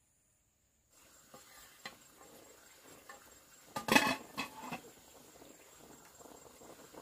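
After about a second of silence, rustling and small knocks begin, with one louder clattering rustle about four seconds in, over a steady high-pitched insect drone.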